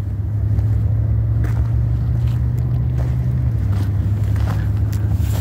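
Steady low engine drone, one of its tones dropping slightly in pitch about three and a half seconds in.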